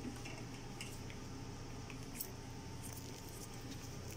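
Faint, scattered clicks of small plastic parts being handled, as a test lung is taken off a ventilator's breathing circuit, over a steady low hum.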